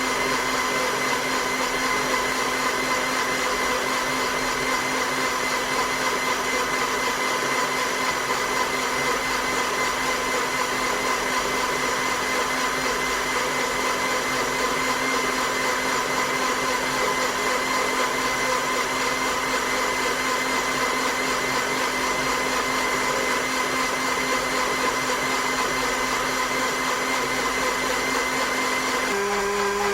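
An electric household appliance motor runs steadily with a constant whine over a noisy hum. Near the end it gives way to a different, lower-pitched motor sound.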